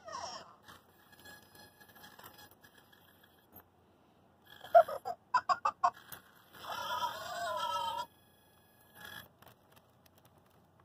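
Spin Master Boxer toy robot making its electronic voice sounds: a short rising chirp and a quick run of beeps about five seconds in, then a wavering, warbling call lasting just over a second, with one more brief chirp near the end.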